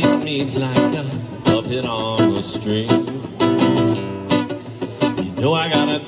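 Live guitar music: plucked strings playing an instrumental passage, with a note that bends up about five and a half seconds in.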